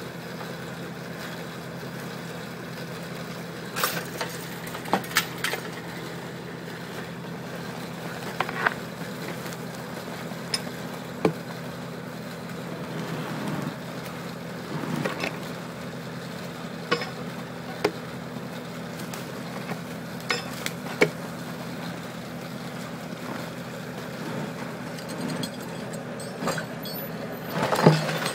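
Tractor engine running steadily as a heavy log is winched on doubled chokers. Scattered sharp clinks and knocks of chain and tools against the log come through it, with a louder cluster near the end.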